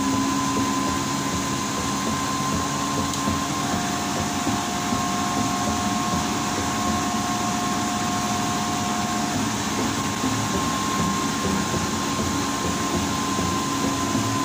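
Inverter-driven air compressor running steadily: a constant machine drone with a steady high whine. A second, slightly lower whine joins for a few seconds through the middle.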